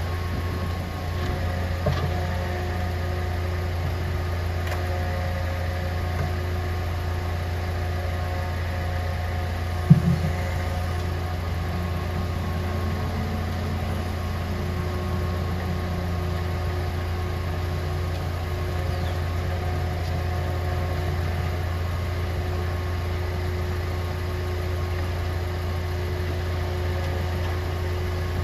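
Grapple-crane garbage truck's engine running steadily to drive the crane's hydraulics, a constant low drone with a steady whine above it. There is a small knock about two seconds in and a sharp, louder knock about ten seconds in as the grapple works the load.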